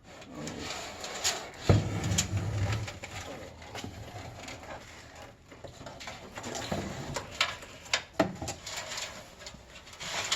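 Scattered clicks, knocks and rustles of computer parts and cables being handled, with a short low hum about two seconds in.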